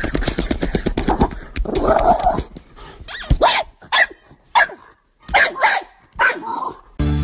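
Small dog growling in a fast, pulsing grumble, then giving about half a dozen short yips and barks that rise and fall in pitch.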